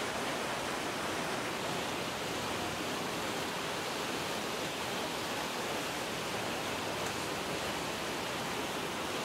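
Steady rushing of a swollen, flooding river, an even wash of water noise with no breaks.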